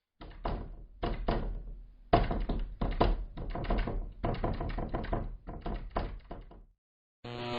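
Knocking used as a horror sound effect. A few separate knocks come first, then fast, irregular knocking from about two seconds in, which stops shortly before the end.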